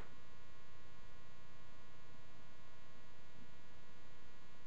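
Steady electrical mains hum with a buzz, a stack of even unchanging tones at a constant level.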